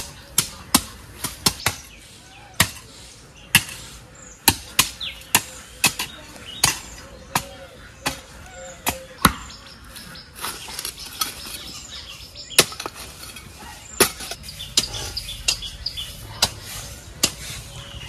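Metal hoe blades chopping into dirt, breaking up the soil of a garden bed. The strikes are sharp and irregular, one or two a second.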